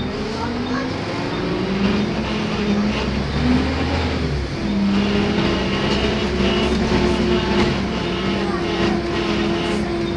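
Volvo B7TL double-decker bus's diesel engine running under load, its pitch rising in the first second, then wavering before settling into steady running with a held higher tone over the second half.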